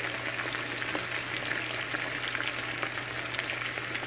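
Chicken pieces frying in a pan of hot oil: a steady crackling sizzle of bubbling oil, with a steady low hum underneath.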